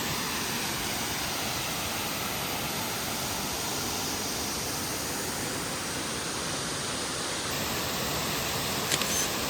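Kings Creek Falls, a mountain waterfall, rushing steadily.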